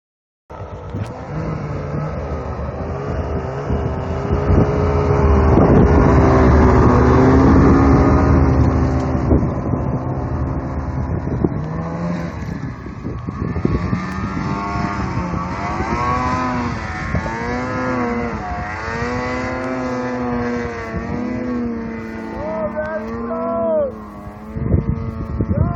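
Snowmobile engines running and revving, loudest early on; later a snowmobile engine's pitch rises and falls repeatedly with the throttle as the sled climbs a steep snow slope.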